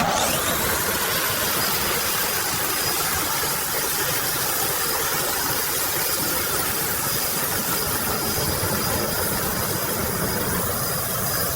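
Jet engine running steadily at idle with a thin high whine over an even rushing noise.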